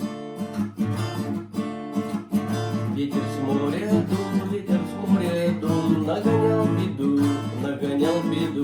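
Acoustic guitar strummed, playing a song's intro.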